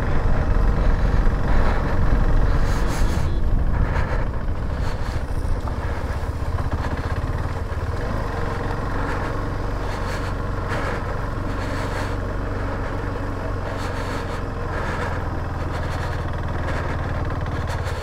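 KTM 390 Adventure's single-cylinder engine running at low speed over a rough, slushy track, with a few short knocks from the bumps. It is louder for the first few seconds, then settles lower and steadier as the bike slows.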